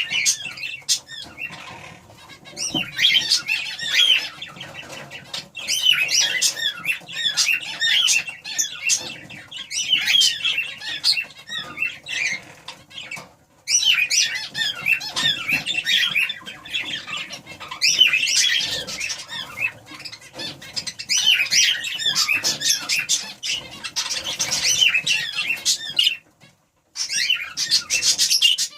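Budgerigars chattering and warbling in rapid chirps and squawks, pausing briefly about halfway through and again near the end.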